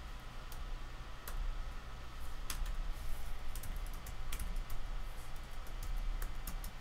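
Computer keyboard typing: scattered key clicks, sparse at first and coming quicker in the second half.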